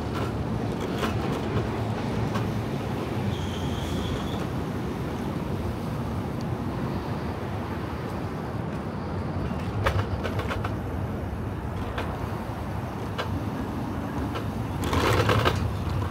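Steady low rumble of wind and road noise while riding a bicycle over a paved bridge deck, with traffic noise. A brief high tone sounds about three seconds in, and a louder rushing noise swells near the end.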